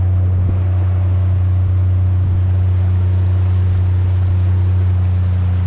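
Motorboat engine running steadily with an even, low hum.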